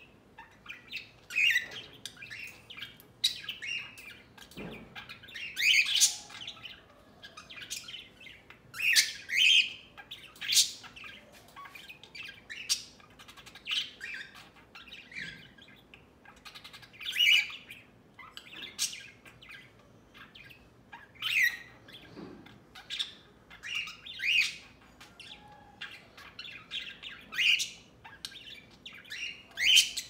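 Budgerigars chattering: a steady run of short high chirps and squawks, with a louder call standing out every few seconds.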